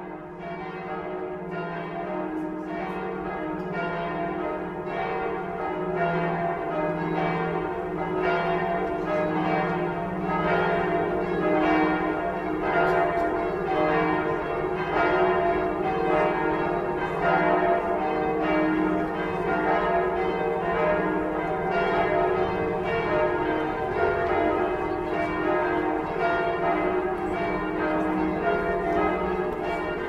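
Church bells of Saint-Gervais ringing together in a continuous peal, several bells of different pitch striking in overlapping strokes. The peal grows louder over the first few seconds, then holds steady.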